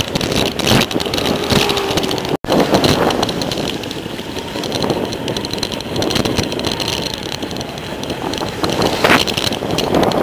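Rattling and tyre noise of a bicycle riding over a concrete sidewalk, picked up by a handlebar-mounted camera, with many irregular knocks from bumps and wind on the microphone. The sound drops out for an instant about two and a half seconds in.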